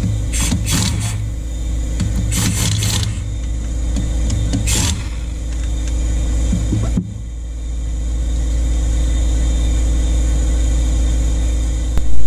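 Impact wrench run against the clutch's centre nut in several short bursts over the first five seconds, loosening it for clutch removal. A steady low machine hum runs underneath throughout.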